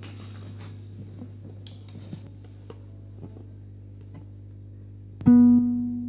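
A near-silent pause in a ukulele intro, with small finger and string rustles over a steady low hum. About five seconds in, a single ukulele note or chord is plucked and rings out, fading.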